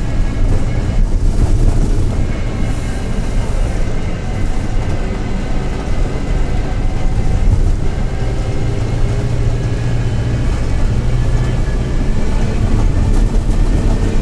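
Mercedes-Benz OF-1721 city bus under way, heard on board: a steady engine and running-gear rumble with a faint whine above it. It carries the growl of a bearing ("rolamento roncando"), the sign of a worn bearing.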